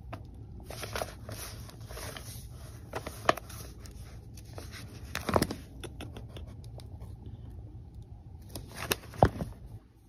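Rustling and scattered light knocks from old books and papers being handled and moved about, with a low steady hum underneath.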